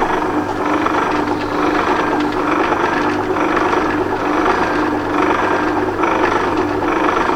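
Machine tool running steadily with an even motor hum and whir, drilling into the metal spanner.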